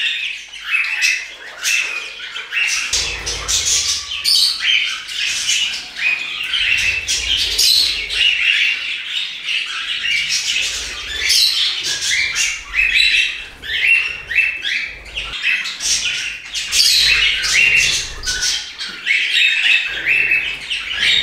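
A flock of pet budgerigars and cockatiels chattering, a continual run of short overlapping chirps and squawks.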